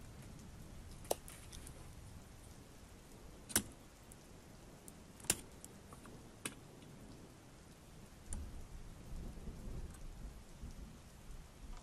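Quiet handling of a circuit board and an electrolytic capacitor. There are four sharp clicks and taps spread over several seconds, then soft rubbing from about eight seconds in as the capacitor is pulled off the board.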